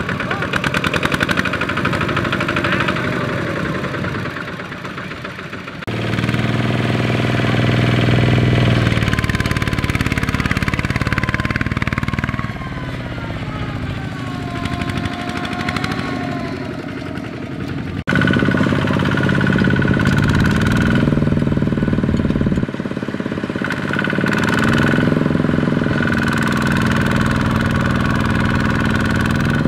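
Single-cylinder diesel engines of two-wheel walking tractors chugging and revving hard as they drag loaded rice trailers through deep mud, the pitch rising and falling with the throttle. The sound changes abruptly twice as a different tractor takes over.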